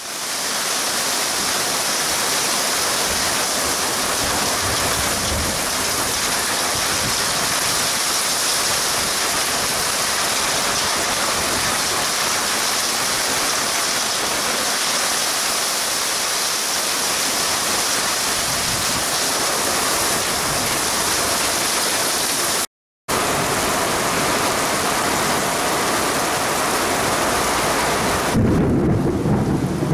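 Heavy thunderstorm downpour driven by strong wind gusts: a loud, dense, steady hiss of rain. It cuts out briefly about two thirds of the way through, and near the end the sound turns deeper and heavier.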